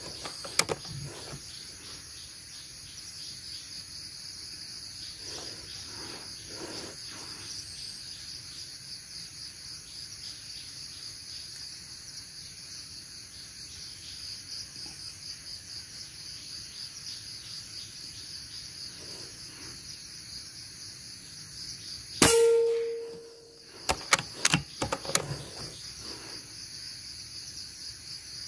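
Steady high drone of crickets and cicadas in the forest. About 22 seconds in comes a single sharp crack with a short metallic ring, the shot of an air rifle, followed a couple of seconds later by a handful of small clicks.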